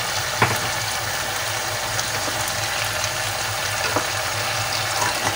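Raw mango pieces sizzling in hot spiced oil in a pan, a steady hiss with a faint tap or two.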